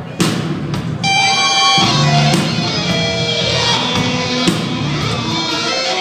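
Live rock band playing an instrumental passage: sharp drum hits in the first second, then sustained pitched notes over the full band.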